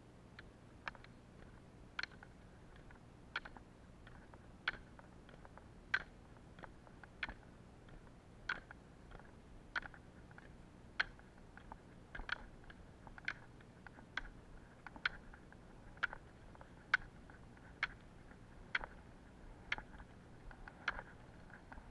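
Roller-ski pole tips clicking on asphalt in a steady poling rhythm, a sharp click a little more often than once a second, quickening slightly about halfway through.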